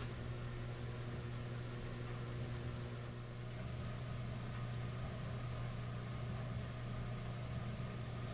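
Steady low hum with a hiss over it, and a brief faint high whistle-like tone about three and a half seconds in.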